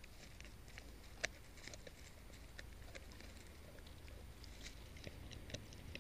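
A dog chewing a meat treat, faint, with scattered small crunching clicks and one sharper crunch about a second in.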